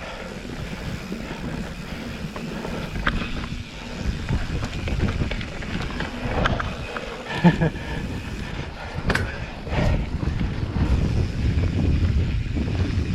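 Wind buffeting the microphone over mountain bike tyres rolling on a dirt trail, with scattered sharp clicks and rattles from the bike over bumps, the loudest a little after halfway.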